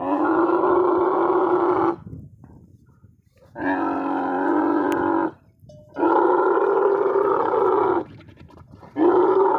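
Dromedary camels vocalizing during mating: four loud, long, groaning calls of about two seconds each, evenly spaced, at a steady pitch.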